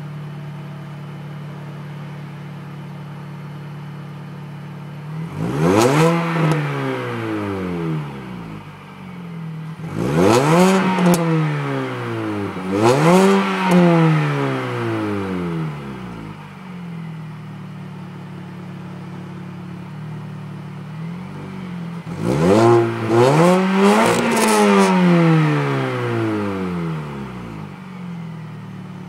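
Stock Mini Cooper S engine idling steadily and blipped four times, each rev rising and falling back to idle: once about five seconds in, twice in quick succession around ten to fifteen seconds, and a longer double rev near the end.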